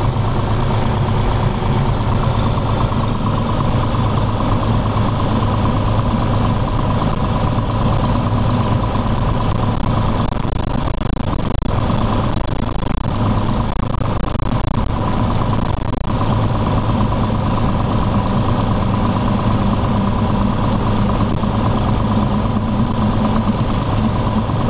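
Cessna 182's piston engine and propeller running at a steady low power while the plane taxis, heard from inside the cabin as a constant drone with a thin steady whine above it.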